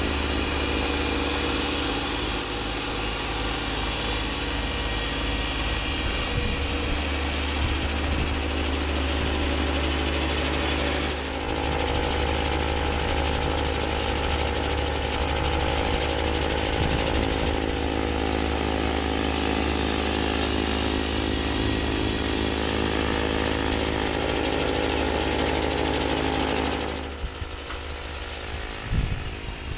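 Kubota B2601 compact tractor's three-cylinder diesel running steadily under load, driving a Land Pride B2782B front snowblower through its mid PTO as it chews through deep snow and throws it out the chute. The sound becomes quieter near the end.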